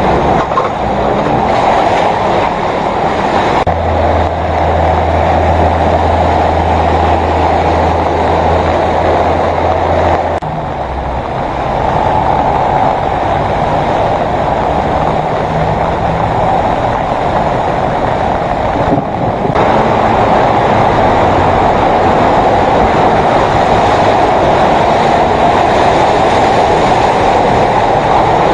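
Vehicles driving through deep floodwater on a road: a loud, steady rush of churning, splashing water with traffic noise. A low engine hum runs for several seconds from about four seconds in, and the sound shifts abruptly at a few points.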